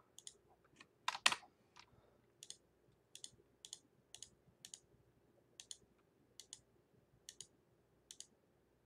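Sharp clicks of a computer mouse and keyboard, about a dozen, mostly in quick pairs, spaced half a second to a second apart, the loudest about a second in, over a faint steady hum.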